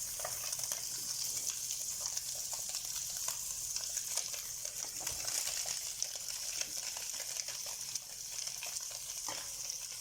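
Tofu stir-frying in hot oil in a pan, a steady sizzle with scattered light clicks and scrapes of stirring.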